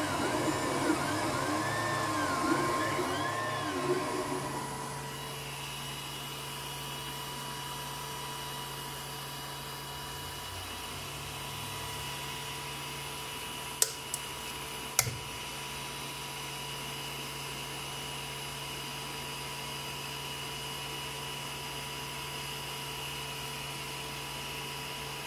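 Ender 3 3D printer running: its stepper motors whine in repeated rising-and-falling sweeps for about the first four seconds, then only a steady motor and fan hum is left, broken by two sharp clicks near the middle.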